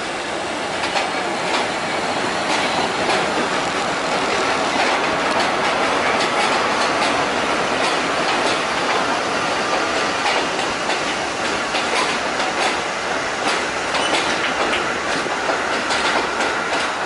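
Vintage subway train rolling past on elevated track: a steady rumble of wheels and running gear with repeated sharp clicks as the wheels cross rail joints, and a faint wheel squeal in the second half.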